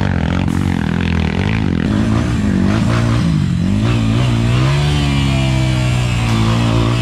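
Dirt bike engine revving up and down in short throttle blips, then rising and holding a steadier note about five seconds in.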